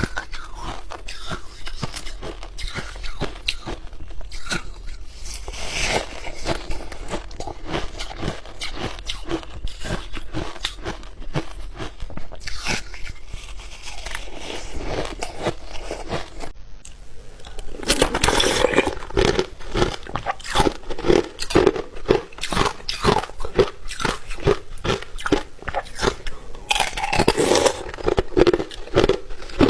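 Ice being bitten and chewed close to the microphone: rapid, crackly crunching, with a brief pause about two-thirds of the way through, then louder, denser crunches.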